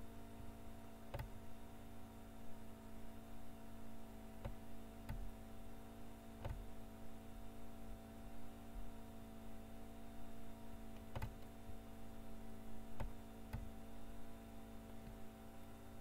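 Computer mouse clicks, about eight, scattered irregularly over a steady electrical hum.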